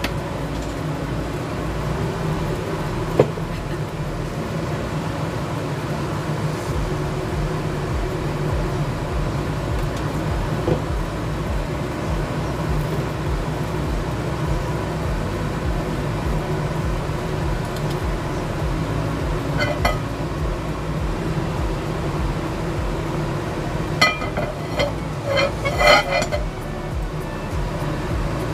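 A steady low hum runs throughout, with a sharp clink about three seconds in and a short clatter of dishes and utensils near the end.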